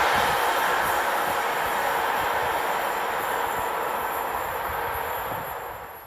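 Container freight train rolling away down the track, the steady rolling noise of its wagons slowly fading as it recedes. The sound drops away abruptly right at the end.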